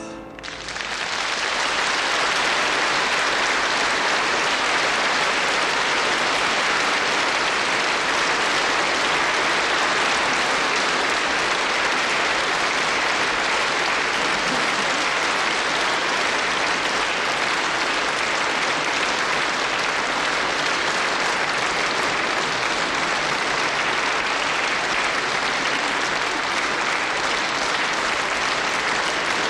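Audience applauding steadily, rising to full strength within the first second as the singing stops.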